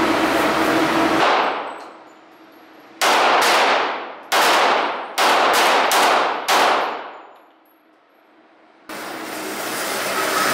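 Five 9mm shots from a Glock 19 Gen 4 pistol, fired in an indoor range, each echoing off the walls as it dies away. The first two are about a second apart and the last three come in quicker succession. A steady rushing noise fades out before the shots and cuts back in near the end.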